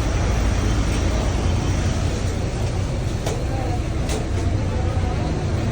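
Steady low rumble like street traffic or a running motor, with two short sharp sounds about three and four seconds in.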